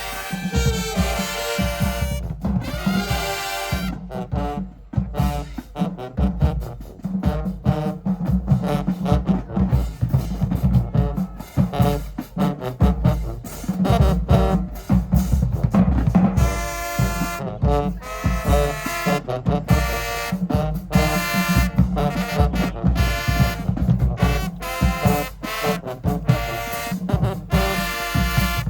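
High school marching band playing, brass horns carrying the tune over a drum line's steady beat.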